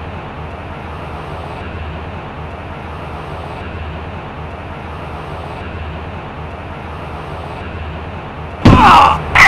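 Steady street-traffic sound of car engines with a low hum. Near the end, a sudden loud screech with bending squealing tones, then a second loud burst with a steady blaring tone.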